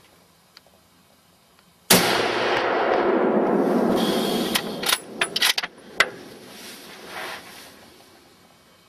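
A single gunshot about two seconds in, its report and echo lasting a couple of seconds, followed by a few sharp clicks.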